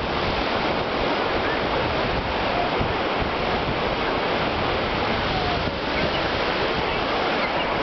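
Surf: small waves breaking and washing up the shore in a steady hiss, with wind gusting on the microphone.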